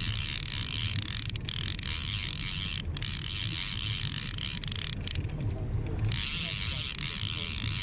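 Okuma Convector CV 30D level-wind trolling reel being cranked against a hooked salmon: a steady clicking whir of its gears and line, stopping briefly a few times, longest about five seconds in.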